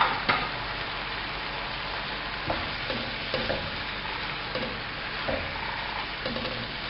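Minced beef with onions, tomatoes and green chillies sizzling in a wok as a spatula stirs it, with scrapes and knocks of the spatula against the pan. Two sharper knocks come right at the start, and lighter ones follow now and then.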